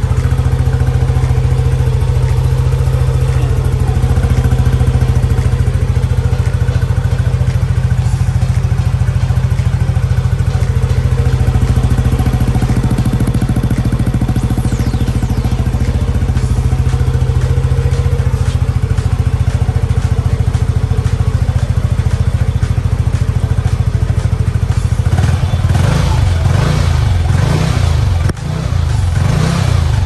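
Yamaha NMAX V1 scooter's single-cylinder four-stroke engine running at a steady idle through a TSMP Silent Killer Stage 1 aftermarket muffler. In the last few seconds it is revved up and down a few times.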